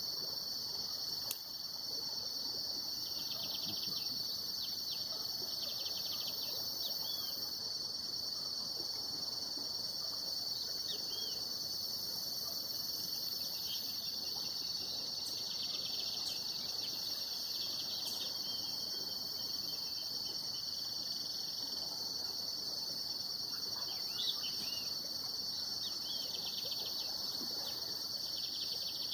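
Steady high-pitched chorus of insects, with scattered short bird chirps over it.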